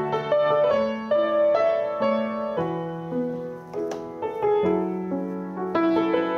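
Grand piano played solo: a melody of single notes, each left ringing, over held bass notes.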